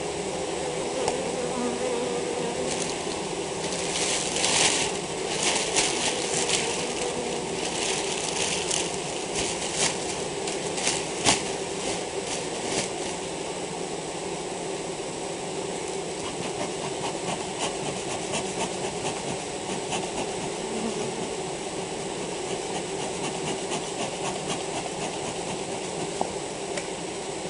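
A large mass of honeybees shaken out of their hive onto a sheet, buzzing steadily. Bouts of rustling and crackling come through in the first half.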